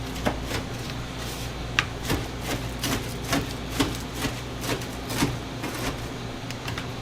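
Knife chopping on a cutting board, about a dozen uneven strikes at roughly two a second, over the steady hum of kitchen ventilation.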